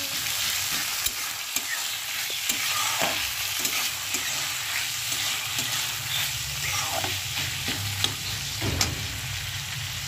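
Green peas and sliced onions sizzling in hot oil in an aluminium kadai. A metal spatula stirs them, scraping and clicking against the pan now and then.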